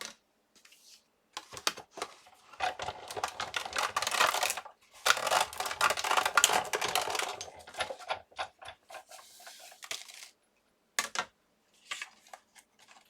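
Clicks, clatter and rustle of die-cutting work: plastic cutting plates, a steel-rule die and cardstock being handled and run through a Sizzix Big Shot, with two longer crackling stretches of a couple of seconds each near the middle.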